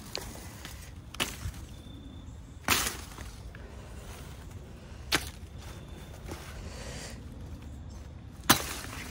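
A 1920s Sears hand sickle slicing through weed stems in short, sharp strokes: four quick cuts a second or more apart, the last the loudest, with a few fainter ticks between them.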